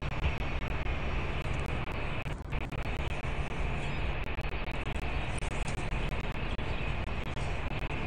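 Steady low rumble and hiss of city background noise picked up by an outdoor nest-box microphone, with a few faint clicks.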